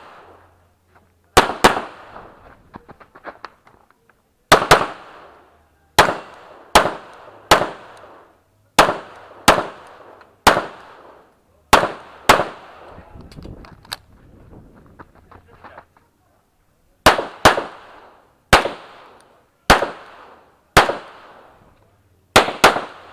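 Pistol gunfire during a practical shooting stage: about eighteen shots, mostly single and roughly a second apart, with a few quick pairs, each followed by a short echo. There is a pause of about five seconds in the middle.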